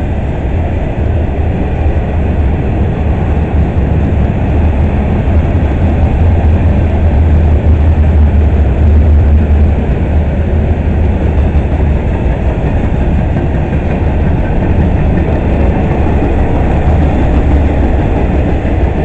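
Freight cars of a long manifest train rolling past: a steady rumble of steel wheels on rail, loudest about halfway through.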